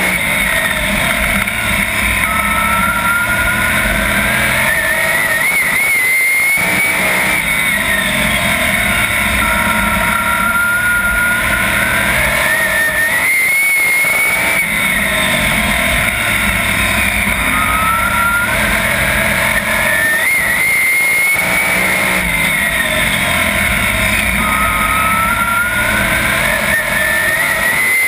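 A 410 sprint car's V8 engine at racing speed, heard on board the car: its pitch climbs along each straight and drops as the driver lifts into each turn, about four times, over steady rushing noise.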